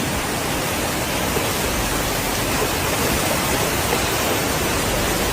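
Steady, loud rushing of fast floodwater, a dense even roar with no breaks.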